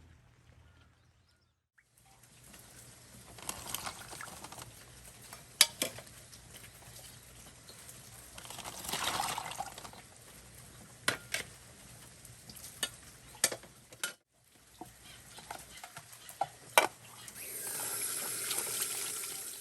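Water running or being poured in several short spells, with sharp knocks and clicks between them.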